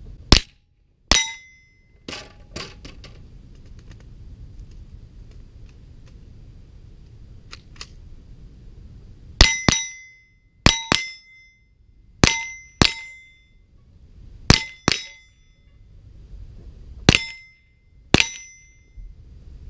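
Rifle shots at steel targets: two shots near the start, a few seconds of small clicks and quiet, then eight more shots in loose pairs, most followed by the short ring of a struck steel plate.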